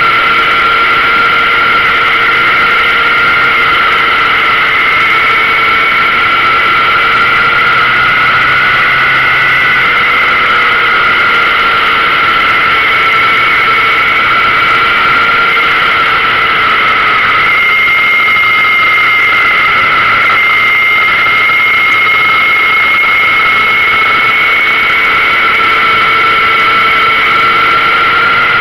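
Yamaha XJR motorcycle riding at a steady cruising speed: a continuous rush of wind with a steady high whistling tone over it and the engine running underneath.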